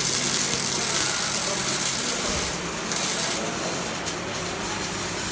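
Semi-automatic (MIG) welding arc running: a steady, loud crackling hiss that eases slightly about two seconds in.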